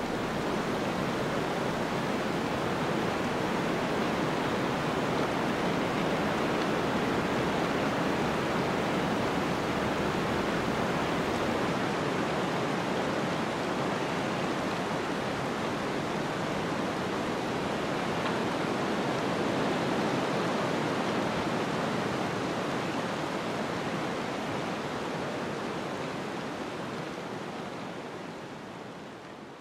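A steady, even rushing noise with no distinct events, fading out over the last few seconds.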